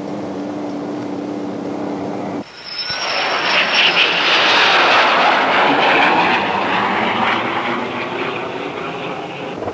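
A steady low hum, then after a cut a jet fighter flies past: its engine roar swells to a peak a couple of seconds later and slowly fades away.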